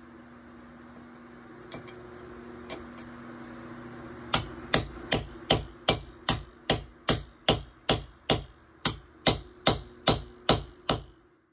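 Hammer striking a chisel against a concrete-block wall: two light taps, then a steady run of about seventeen sharp blows, about two and a half a second, cutting off suddenly near the end.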